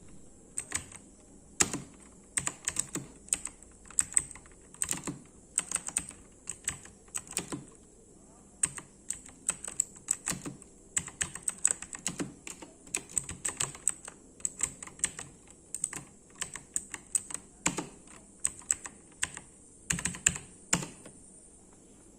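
Typing on an HP GK320 mechanical keyboard with blue switches: a quick, irregular run of sharp key clicks that stops about a second before the end.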